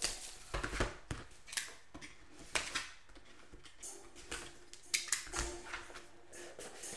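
Cellophane shrink-wrap crinkling and tearing as it is pulled off a cardboard trading-card box, and a box cutter slitting the box open, heard as a run of irregular sharp clicks and rustles.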